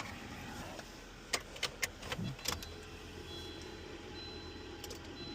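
A car key being tried in a car's lock: keys jangling and a string of sharp clicks, with a faint high tone coming and going in the second half.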